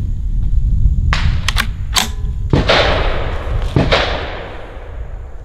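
.22 LR Ruger 10/22 Tactical rifle firing CCI Mini Mag hollow points: two shots about a second apart, each with a long echoing tail. They follow a few lighter, sharper cracks.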